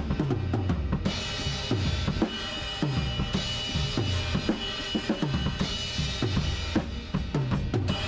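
Acoustic drum kit played in a steady groove, with bass drum, snare and cymbals, heard close up. A quick run of hits comes near the end.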